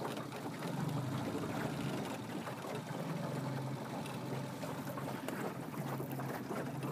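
A small fishing boat's motor running steadily: a low, even hum with wind and water noise over it.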